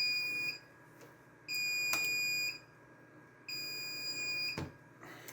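RAID controller card's alarm buzzer beeping a steady high tone, about a second on and a second off, three beeps: the alarm for a failed hard drive in the array.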